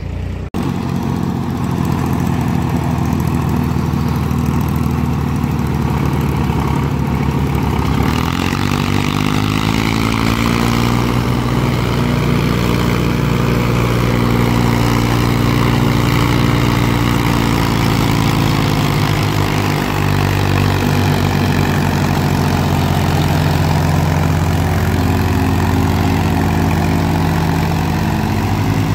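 Powertrac tractor's diesel engine working under load, hauling a heavily loaded trolley. The engine note climbs about eight seconds in, holds high, then eases back down around twenty seconds.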